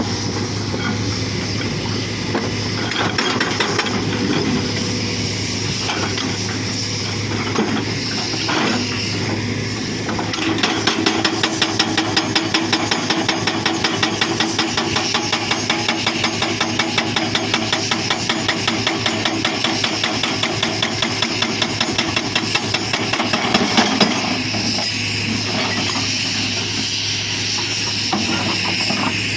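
Hitachi Zaxis 240 excavator's engine running, joined about ten seconds in by its hydraulic breaker hammering rock with rapid, even blows. The hammering goes on for about fourteen seconds, then stops while the engine keeps running.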